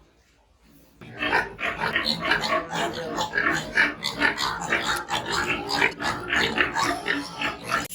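A litter of newborn piglets calling all at once, many overlapping high-pitched squeals and grunts, starting about a second in after a brief hush.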